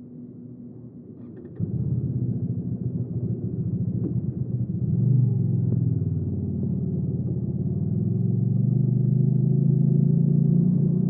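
Hyosung GV300S V-twin motorcycle engine starting about a second and a half in after a few short clicks, then running with a deep low beat that swells briefly and builds gently as the bike moves off.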